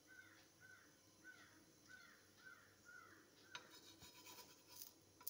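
Faint chirping call repeated about twice a second for the first three and a half seconds, then light clicks and scraping of a metal spatula against the dosa pan.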